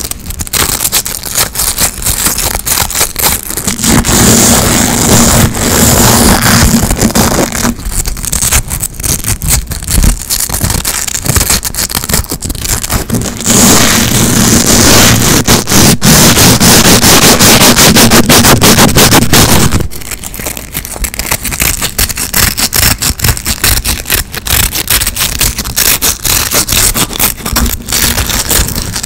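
Hook-and-loop (Velcro) straps ripped apart right against a microphone: loud, scratchy, crackling tearing in quick strokes, with longer unbroken rips a few seconds in and again around the middle.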